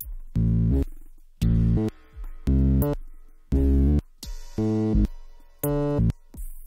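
5U modular synthesizer playing a slow electronic groove: a loud, pitched bass note about once a second, each with a short decaying tail, with a few bright high clicks over the top.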